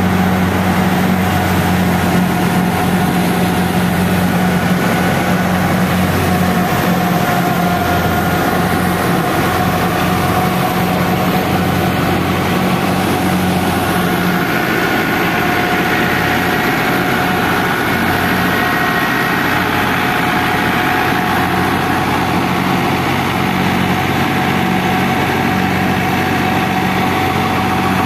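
Fiat 640 tractor's diesel engine running steadily at a constant speed while it drives a wheat thresher through its PTO shaft and belt pulleys, together with the steady drone of the threshing machinery.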